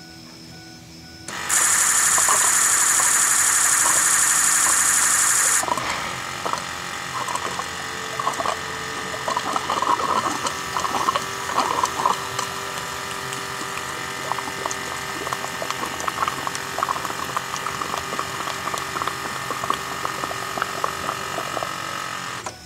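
The electric fuel pump of a 6.0L Powerstroke diesel runs on key-on, purging air from the fuel system into the open, empty fuel filter housing. A loud hiss lasts about four seconds, then a steady pump hum continues with spattering and gurgling as fuel and air bubbles fill the housing. It cuts off abruptly near the end.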